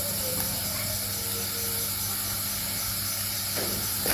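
Steady chirring of night insects over a low steady hum. Near the end comes a soft splash as handfuls of mushrooms are pushed into a pot of hot water.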